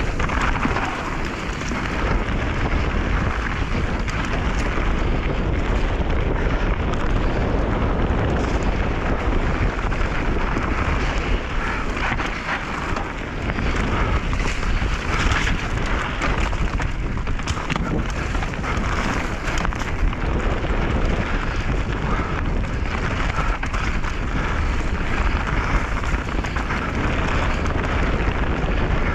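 Mountain bike descending a dirt trail on soft ground: continuous rumbling and crackling of knobby tyres rolling over the earth, with frequent small knocks and rattles from the bike over bumps.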